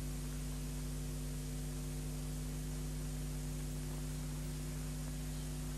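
Steady hiss with a low electrical hum, the noise floor of an old television soundtrack, with no other sound.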